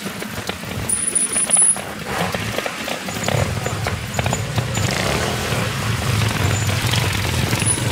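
Several trial motorcycles moving off slowly at low revs, their engines running with a steady low drone that gets louder about three seconds in. There is a short high squeal about a second in.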